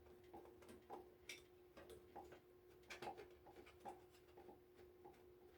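Faint, irregular small clicks and ticks of a screwdriver working screws out of an electric heater's housing, over a faint steady hum.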